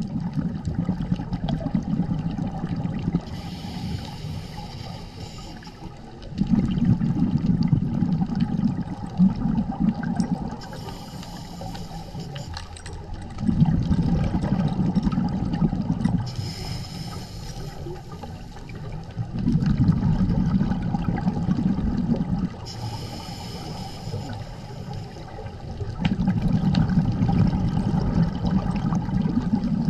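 A scuba diver breathing through a regulator underwater: a hiss on each inhale alternates with a louder bubbling rumble on each exhale, in a slow, regular cycle of about six seconds.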